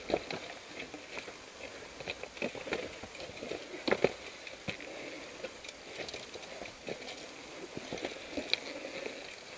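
Uneven footsteps on a dirt trail with the knocks and rattles of mountain bikes being pushed uphill over roots, the loudest knocks about four seconds in.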